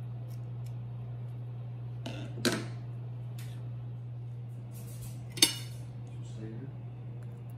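Metal kitchen utensils clacking on a hard kitchen surface twice, a few seconds apart; the first comes as the kitchen shears are set down. A steady low hum runs underneath.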